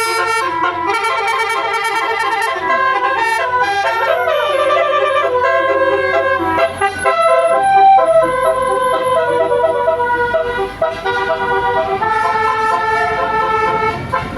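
Bus 'telolet basuri' multi-note musical horn playing a tune: a continuous run of loud horn notes that step in pitch every fraction of a second, with a sliding note about four seconds in.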